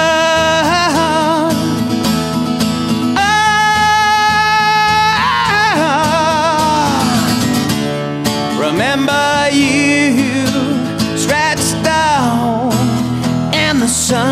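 A man singing long, held wordless notes with vibrato over a strummed acoustic guitar.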